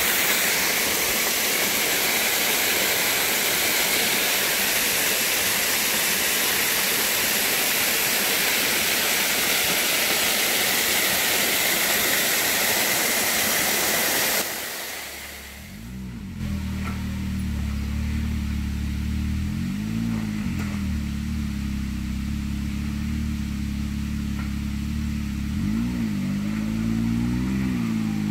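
Small waterfall splashing into a creek pool, a steady rushing. About halfway through it gives way to a 2018 Can-Am X3 Turbo R side-by-side running slowly, its turbocharged three-cylinder engine steady with a few short revs.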